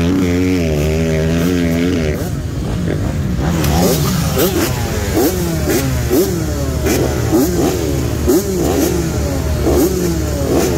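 Dirt bike engine running steadily, then revved in quick repeated throttle blips, about two a second, each a sharp rise and fall in pitch.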